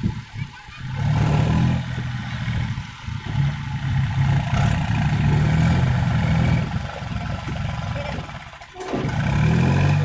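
Swaraj 735 FE tractor's diesel engine working under load as it pulls a trolley of soil, a steady low drone that dips briefly near the end and then revs back up.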